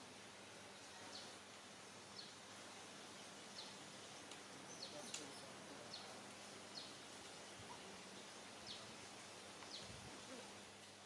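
Quiet outdoor ambience with a faint steady low hum and about ten short, faint high-pitched chirps, roughly one a second.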